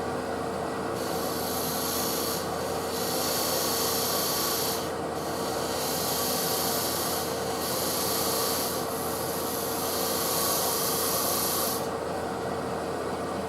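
A woodturning scraper cutting maple burl on a running lathe: a steady motor hum under a rasping hiss of the cut, which comes in about five passes a couple of seconds each with brief pauses between, stopping shortly before the end.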